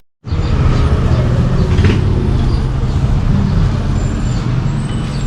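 Hero XPulse motorcycle engine with a modified exhaust, idling steadily with a deep, rapid low pulse.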